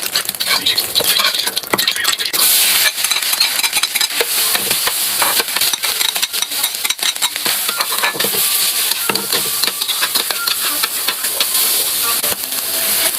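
Food sizzling in a hot pan while it is stirred, with the utensil scraping and clicking against the pan over and over.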